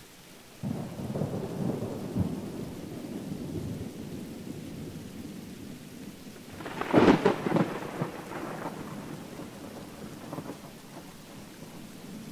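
Thunder over steady rain: a rumble breaks in suddenly under a second in and rolls on for a few seconds, then a louder, sharper thunderclap about seven seconds in trails off into fading rumbles.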